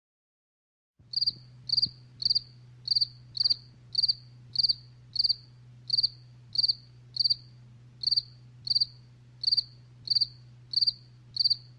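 A cricket chirping at an even pace, about one and a half short high chirps a second, over a low steady hum; it starts about a second in.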